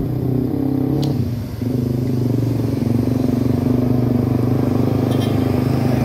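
Large diesel coach engine running steadily with a low hum, with a short dip in level about a second and a half in.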